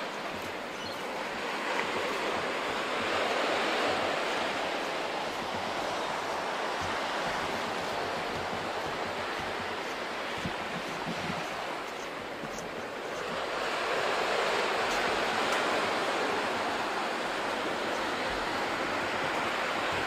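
Sea waves breaking and washing up the beach, swelling twice, about ten seconds apart.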